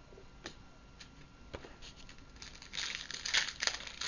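Trading-card pack wrapper crinkling and tearing as a pack is handled and opened, starting about halfway through and getting louder, after a few soft clicks.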